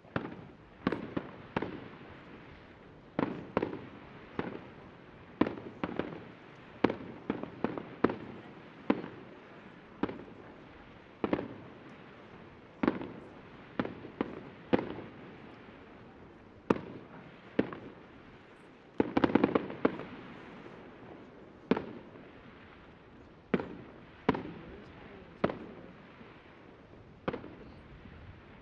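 Aerial fireworks shells bursting in a display: an irregular string of sharp bangs, roughly one a second, each with an echoing tail, and a quick flurry of bangs about two-thirds of the way through.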